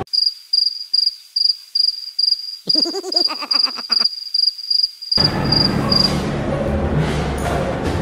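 Cricket-chirping sound effect laid over the picture with all other sound cut out: one high chirp repeating evenly about two and a half times a second. A short warbling call sounds for about a second in the middle. Room sound comes back about five seconds in, and the chirps stop soon after.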